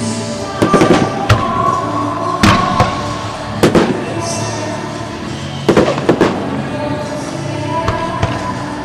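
Aerial fireworks shells bursting in about a dozen sharp bangs, coming in clusters of two or three, with music playing underneath throughout.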